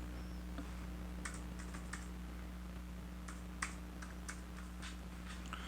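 Keys of a slim Rii K16 wireless keyboard clicking as someone types, in two short runs of keystrokes with a pause between them.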